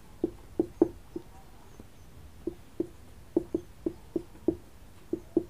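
Marker writing on a whiteboard: a quick, irregular series of short taps and squeaks as the strokes of the letters are drawn.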